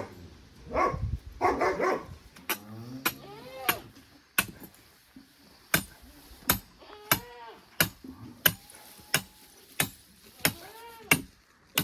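A dog barking repeatedly in short, sharp barks and yips, about one every two-thirds of a second.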